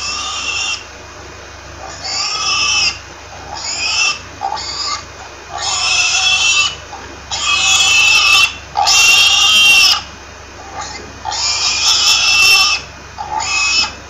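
Domestic pig squealing in a series of about nine separate high-pitched calls, each a second or less, with the longest and loudest calls in the second half.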